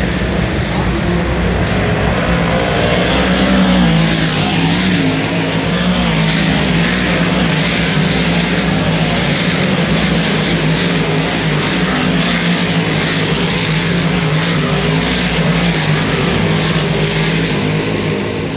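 A field of big-block dirt modified race cars with V8 engines running hard around the track. The engines blend into a loud, continuous drone whose pitch wavers as the cars pass through the turn, a little louder about four seconds in.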